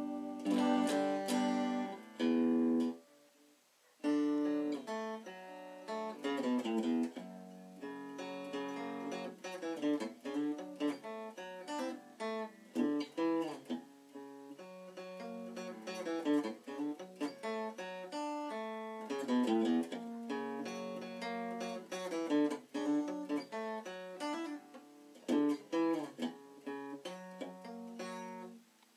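Small-bodied semi-hollow CS-356-type electric guitar being played: a few ringing chords, a brief pause about three seconds in, then a long run of quick picked single notes mixed with chords.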